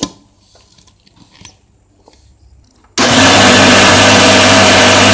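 Electric mixer grinder switched on about three seconds in, its motor running loud and steady as it grinds soaked urad dal dry, without water, into batter in a steel jar. Before it starts, a few light clicks as the jar and lid are handled.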